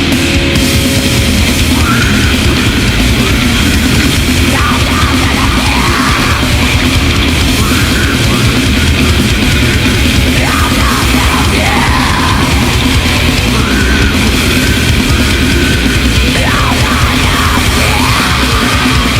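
Extreme metal demo track: loud, dense distorted guitar and bass over programmed drums, with harsh yelled vocals coming in and out over it.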